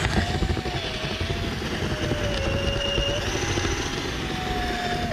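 Power drill with a long twist bit running continuously, drilling in the hole in a plywood wall. Its motor whine dips in pitch about halfway through, rises again a little later, and cuts off at the end.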